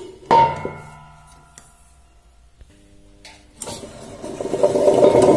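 Tabletop wet grinder switched on: its motor and granite roller start turning in the steel drum and the grinding whirr builds up to a steady loud run near the end. Earlier, about a third of a second in, a metallic clang rings out and dies away.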